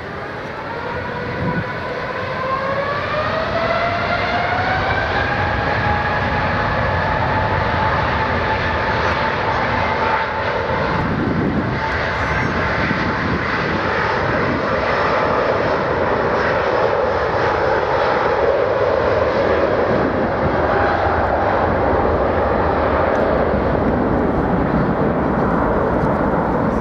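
Airbus A350's Rolls-Royce Trent XWB engines spooling up to takeoff power: a whine rises over the first few seconds and levels off, then a loud steady jet roar carries on as the airliner makes its takeoff roll.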